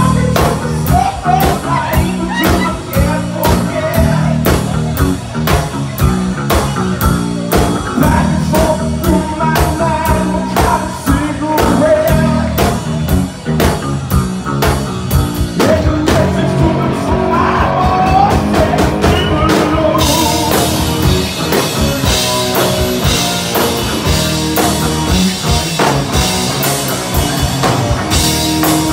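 Live rock band playing loud: a singer over electric guitar and a drum kit with a steady beat. About twenty seconds in the singing stops and the band plays on, with the cymbals and guitars brighter and fuller.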